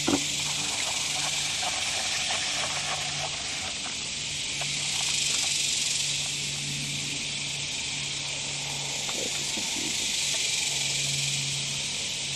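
Steady high-pitched hiss of an insect chorus, unbroken throughout, with a few faint clicks and knocks near the start.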